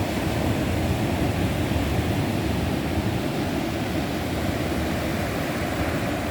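Ocean surf rushing steadily on the shore: an even, unbroken noise with a heavy low rumble.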